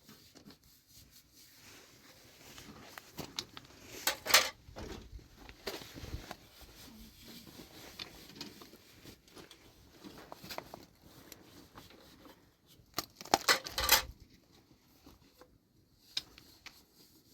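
Sharp clattering knocks in two clusters, a few about four seconds in and a louder run around thirteen to fourteen seconds, with faint scattered ticks between.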